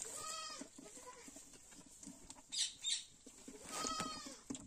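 Goat bleating twice, short wavering calls at the start and again near the end, with two sharp clicks in between.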